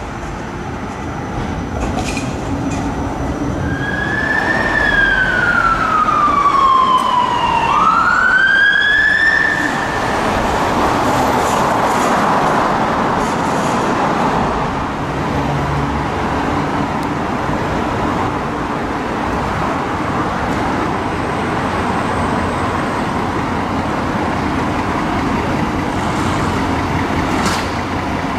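Ambulance siren sounding one long sweep about 4 s in, falling slowly in pitch and then climbing quickly back up, over steady city traffic noise. The rest is traffic and a vehicle engine running.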